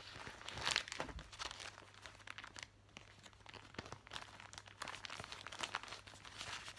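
Clear plastic project bag crinkling and rustling as it is handled and opened, in irregular strokes, loudest about a second in.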